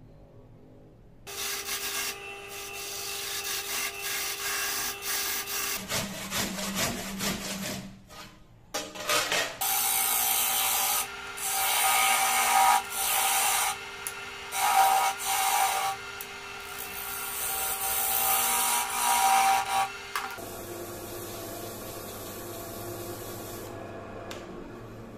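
Wood lathe spinning a segmented hardwood vase while a hand-held turning tool cuts into the wood at its base, a loud scraping cut that comes in several stretches over a steady motor hum. In the last few seconds the lathe runs on with no tool cutting.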